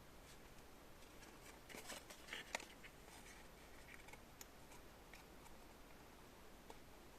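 Near silence: quiet room tone with a few faint clicks and ticks, most of them bunched about two seconds in.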